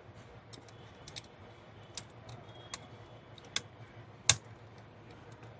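Small plastic parts of a camcorder being handled and pressed into place: a scattered series of sharp little clicks and taps, with one louder snap about four seconds in.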